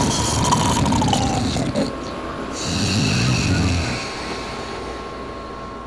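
A man snoring in his sleep: one long snore through the first second and a half, then another starting about two and a half seconds in, fading toward the end.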